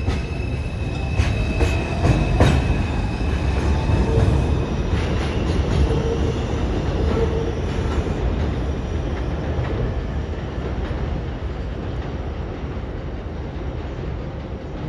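New York City subway train running through the station: steel wheels clicking over rail joints and squealing in the first few seconds, then a steady rumble that slowly fades as the train moves away.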